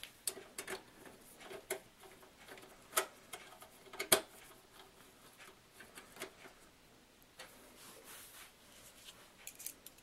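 Screwdriver working a screw in the sheet-metal chassis of an HP Media Center m7160n desktop: scattered small metal clicks and ticks, the loudest about three and four seconds in.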